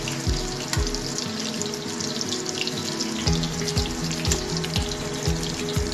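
Lumpia deep-frying in hot oil, a dense crackling sizzle with many small pops. Background music with a steady beat plays underneath.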